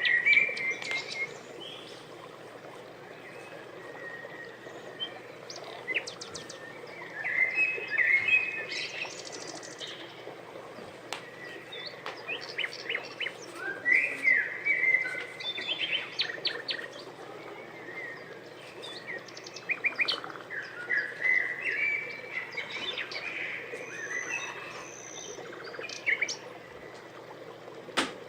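Small birds chirping and singing in repeated bursts of rapid chirps and trills, a few seconds apart. A single sharp click near the end.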